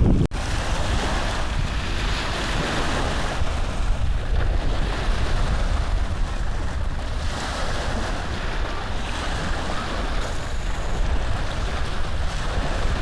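Steady rushing noise with a low rumble and swelling hiss, from cross-stitch cloth being handled and rustled right against the recording phone's microphone; it cuts out for an instant near the start.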